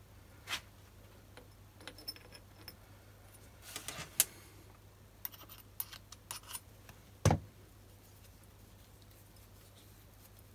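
Small metal parts of a BS-0 dividing head handled by hand and fitted together: scattered light metallic clicks and clinks, some with a short high ring, and one dull knock about seven seconds in, over a faint steady hum.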